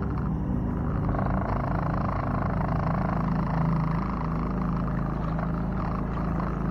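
Honda 2 hp four-stroke single-cylinder outboard motor running steadily under way, pushing a small jon boat along.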